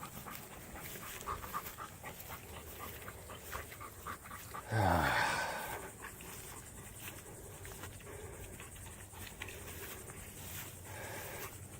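Labrador retrievers panting hard after swimming in the heat, with one louder, brief call falling in pitch about five seconds in.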